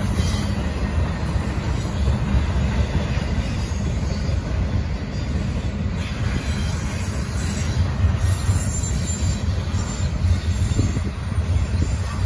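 Double-stack intermodal freight train rolling past: a steady low rumble of steel wheels on the rails and the cars running over the track.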